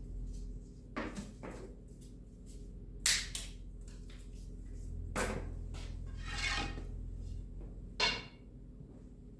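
Pieces of scrap wood knocking together as they are handled and set down: about six knocks, the loudest about three seconds in, and a short scrape in the middle, over a low steady hum.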